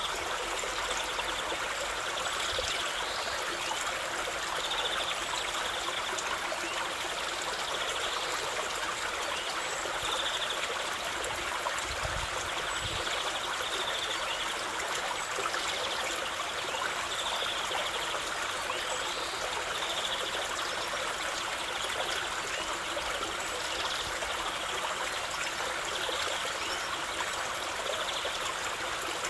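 Running water flowing steadily, an even, unbroken noise with no breaks.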